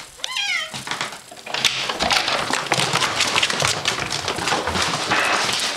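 Young cats' paws and claws pattering and scrabbling fast on a hardwood floor as they run for their food, a dense run of taps and thuds that starts about a second and a half in. A short high squeak comes just before.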